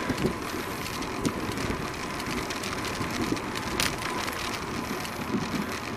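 Steady wind and road noise while riding a bicycle along a street in light traffic, with one short sharp click a little under four seconds in.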